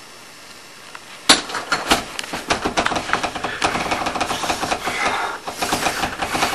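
A sharp bang about a second in, followed by a rapid, irregular clatter of knocks and rattles.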